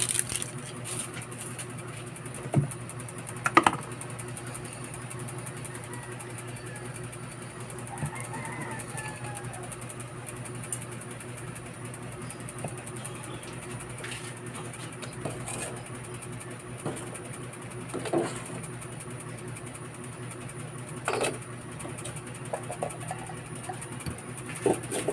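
Steady low motor hum with a faint high whine, broken by a few scattered soft knocks and clicks. Near the end an aluminium lid clinks down onto the stockpot.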